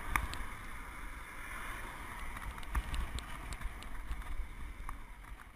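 Wind buffeting the microphone of a helmet-mounted camera while cycling on a road: an uneven low rumble under a steady hiss, with a few faint ticks.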